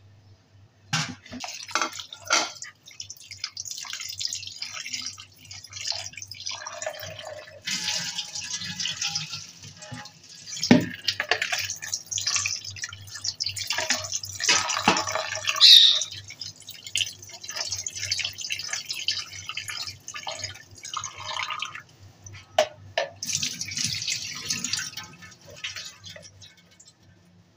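Kitchen tap running and splashing into a plastic bowl of raw mutton liver pieces in a stainless steel sink as they are rinsed, the water coming in spells as it is run, swirled and poured off. A few sharp knocks are heard, the loudest about eleven seconds in.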